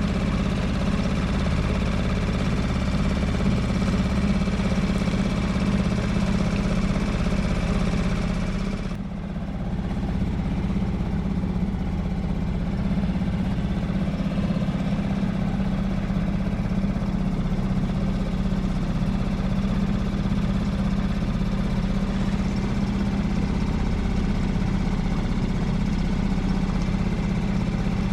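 Small boat motor running steadily at slow trolling speed, a constant low hum. About nine seconds in the level dips briefly and the hiss above the hum drops off.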